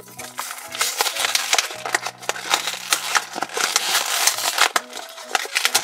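A cardboard-and-plastic blister pack being torn open by hand: the card backing ripping and the plastic crinkling in a steady run of crackles and tears.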